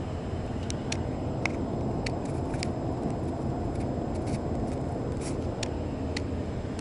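Steady road and engine noise inside a car cabin at highway speed, with a scattering of light, sharp clicks and rubbing from the camera being handled.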